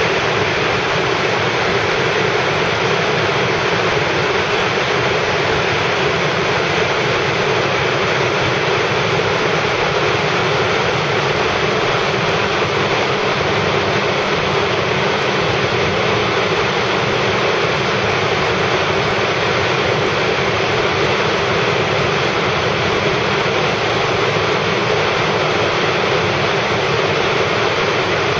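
Steady road and wind noise of a car driving at highway speed, an even rushing hiss that does not change.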